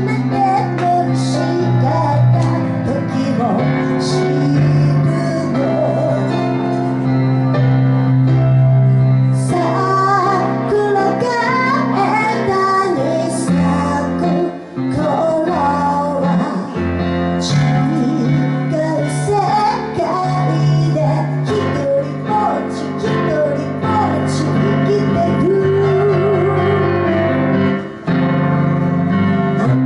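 A voice singing over piano accompaniment, a ballad sung and played together, with sustained chords under the melody.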